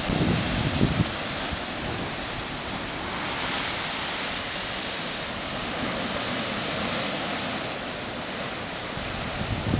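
Steady rushing of sea surf and wind on an open coast, with wind buffeting the microphone in the first second.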